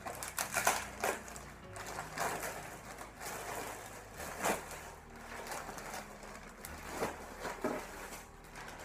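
Plastic mailer bag crinkling and rustling in irregular bursts as it is torn open and clothing is pulled out. Background music with a low bass line plays underneath.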